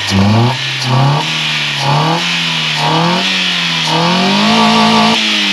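Chevrolet Corsa engine revved in about five quick throttle blips, its note rising and falling each time; the last is held for about a second before dropping back. The car has a belt tensioner with a broken spring, which is what knocks; the engine itself runs smoothly.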